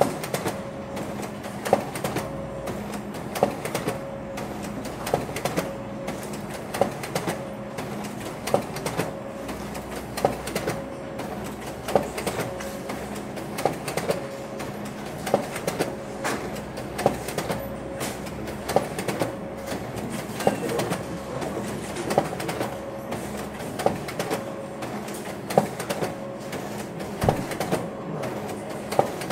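Office photocopier running continuously: a steady mechanical hum with a regular clack a little more than once a second.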